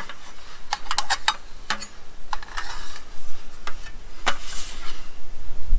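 Aluminum legs of a GSI Outdoors Macro folding camp table being folded against its slatted aluminum top: a series of sharp metallic clicks and knocks, some in quick clusters, with light rustling between them.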